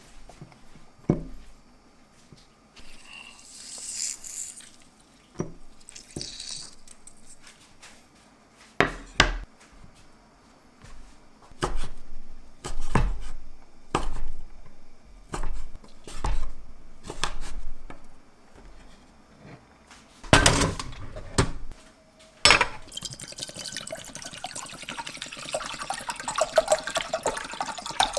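Dried shiitake mushrooms swished by hand in a glass jar of water, then a kitchen knife slicing them on a wooden cutting board in single strokes about a second apart, then water poured steadily into a stainless steel saucepan for the last several seconds.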